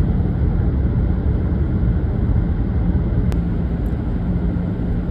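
Car driving on a wet, snowy road, heard from inside the cabin: a steady low rumble of tyres and engine, with one faint click about three seconds in.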